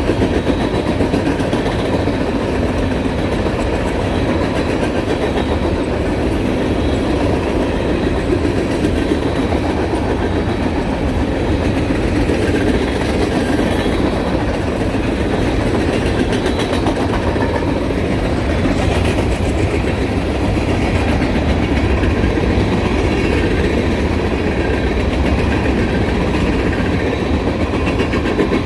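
Long freight train of empty cars rolling past at speed: a steady, loud rumble of wheels on rail with clickety-clack over the rail joints.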